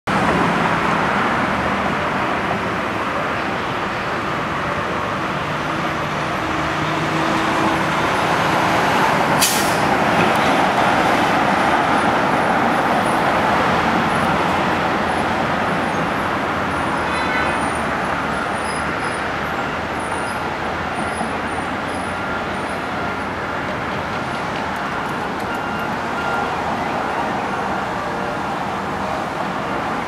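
Steady road traffic noise of passing vehicles, with a single sharp click about nine seconds in.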